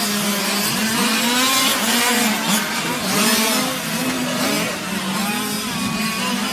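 Several 1/5-scale RC GT race cars with two-stroke petrol engines buzzing around the track, their pitch rising and falling as each car accelerates and lifts off through the corners.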